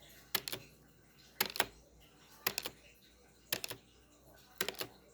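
Countdown timer ticking, slowed to 0.7x speed: a sharp double click about once a second, five in all.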